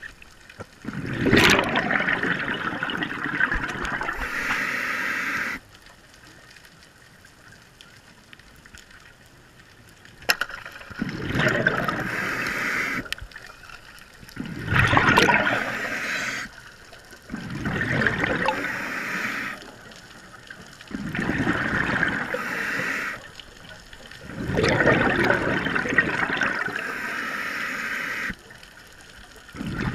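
Exhaled air bubbling out of a scuba regulator underwater. It comes in six rushing bursts of two to four seconds each, the diver's breaths, with quieter pauses between them while the diver inhales.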